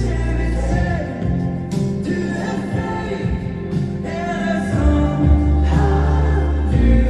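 Live amplified pop music through a PA system: a singer's voice over a band backing with a strong, deep bass line.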